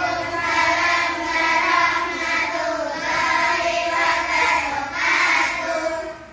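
A group of children singing together in unison, in long held phrases. The singing fades away near the end.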